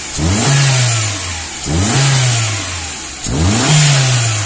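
Toyota Corolla All-New's 1.6-litre four-cylinder engine free-revving in three quick throttle blips, each rising sharply and falling slowly back to idle. It revs cleanly: the stumbling and hesitation it had before have been repaired.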